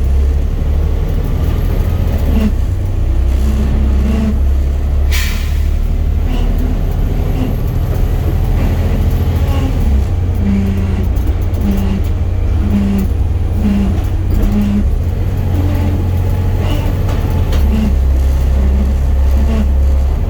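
Volvo B7 diesel bus running, heard from on board: a steady low drone from the engine and driveline, in which the uploader hears a weird axle noise. A short burst of air hiss comes about five seconds in.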